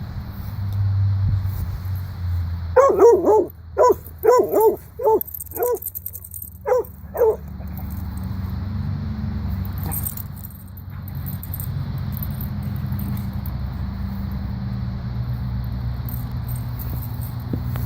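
A dog barking in a quick series of about eight short, high barks, then stopping, over a steady low rumble.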